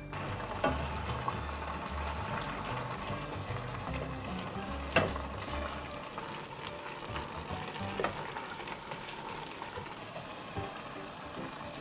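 Vegetable and tuna rice porridge simmering and bubbling in a pot while a wooden spoon stirs it, with a few sharp knocks of the spoon against the pot, about a second, five and eight seconds in. Low background music plays through the first half.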